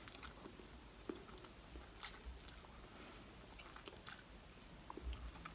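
Faint chewing and slurping of instant cup noodles, with scattered small wet mouth clicks.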